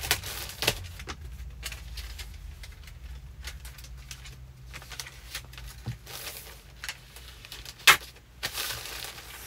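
Packing noises: papers and plastic shipping mailers being handled, with scattered rustles and light knocks. A sharper knock comes about eight seconds in, over a low steady hum.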